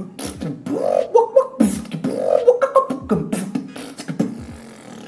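Beatboxing with lip bass: buzzing lip-oscillation bass notes that bend in pitch, over sharp kick- and snare-like clicks in a pattern that repeats about once a second. The pattern stops about four seconds in.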